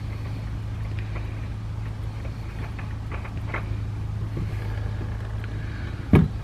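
A mowing crew's engine running steadily in the background, with a few faint clicks of handling and a sharp knock about six seconds in.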